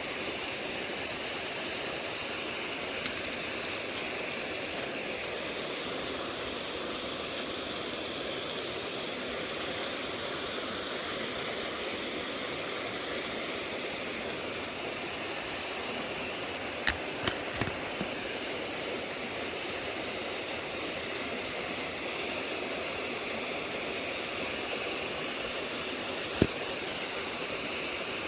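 Steady rushing of a shallow mountain stream flowing over rocks. A few sharp clicks come about two-thirds of the way in, and one louder click near the end.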